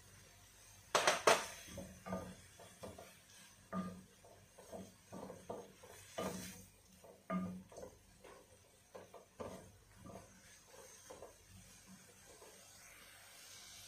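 Wooden spatula stirring shrimp and vegetables in a wok, with irregular clacks and scrapes of wood on the pan. A pair of sharp knocks about a second in is the loudest.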